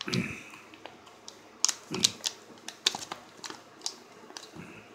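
Fingers prying and pulling at a snug plastic SSD retail package, making irregular sharp plastic clicks and crackles, with three dull knocks as it is handled.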